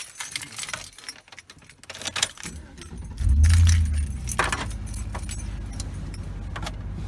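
Keys jangling on a keychain at the ignition of a GMC pickup, then the truck's engine starts about three seconds in. It flares up briefly and settles into a steady idle: a cold start at about minus 11.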